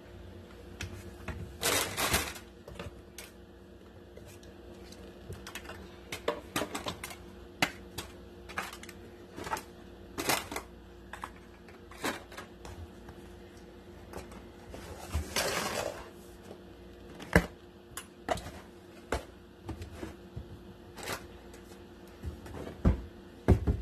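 Plastic bottles, aerosol cans and cardboard boxes being picked up, moved and set down inside a cabinet: an irregular run of light knocks and clatter, with two longer sliding sounds, one about two seconds in and one past the middle.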